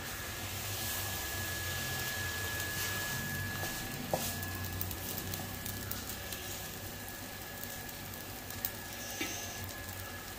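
Thick, sticky broken-wheat and sugar laddu mixture being scraped out of the pan onto a plate: soft squishing with a couple of light clicks, over a steady faint hiss.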